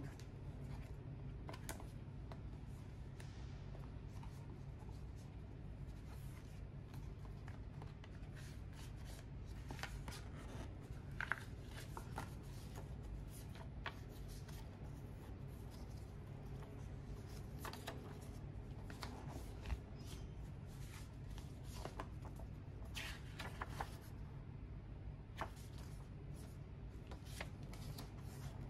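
Stiff paper and cardboard rustling, sliding and flapping as gloved hands handle a box's paper inserts, card and folded booklets, with scattered light clicks and taps, over a steady low hum.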